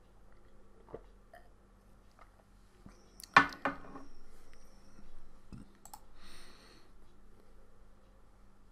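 Scattered computer mouse clicks, with a loud, short double sound about three and a half seconds in.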